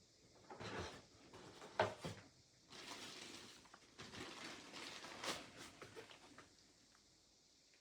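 Cardboard and paper packaging of a camera box being handled: rustling and scraping with a few soft knocks, the sharpest about two seconds in.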